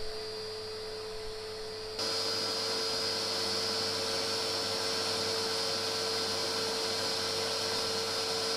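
Steady electric machine hum with a hiss, holding one pitch, stepping up in level about two seconds in and then staying even.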